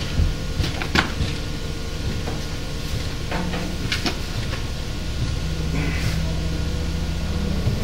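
Knocks and clanks from an 1870s single-cylinder stationary steam engine's flywheel and belt pulley as it is pushed round by hand, over a steady low hum.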